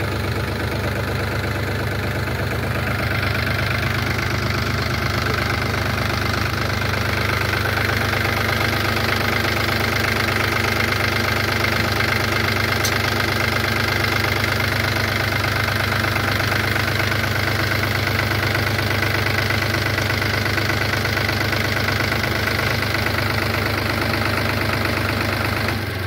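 Farmtrac 6037 Champion Plus tractor's diesel engine idling steadily, growing a little louder about three seconds in.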